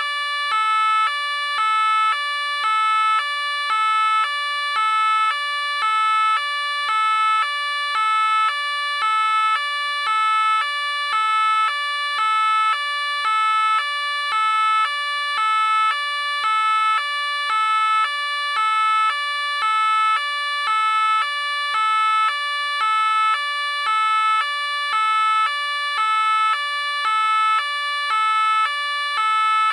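French police car two-tone siren, alternating steadily between a high and a low note, one high-low pair about every second, repeating without change.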